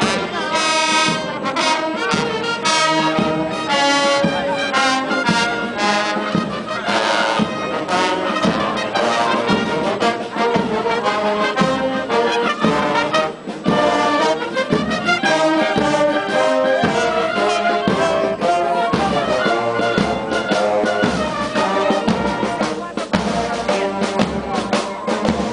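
Military marching band playing a march as it passes close by: trumpets, trombones, sousaphones and saxophones over a steady drum beat.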